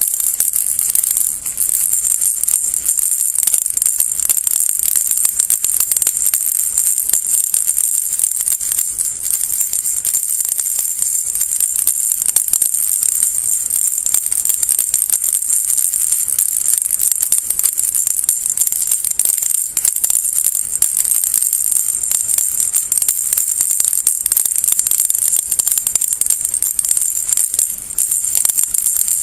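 Baby rattle shaken continuously, its small beads rattling rapidly with a bright, high-pitched clatter.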